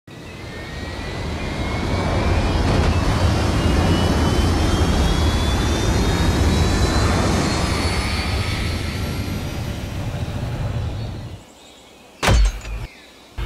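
Edited-in aircraft engine sound effect: a rumbling engine noise with a faint rising whine swells up, holds, and dies away about eleven seconds in. A short, sharp loud hit comes near the end.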